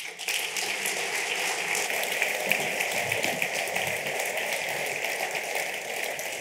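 Audience applauding, breaking out all at once and then holding steady.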